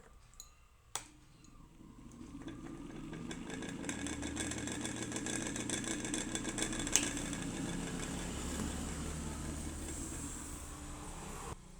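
Ceiling fan running with a rapid rattling tick over its motor hum, the sound of a worn bearing. It starts with a click, builds up over a few seconds, has a sharp click about seven seconds in, and stops suddenly near the end.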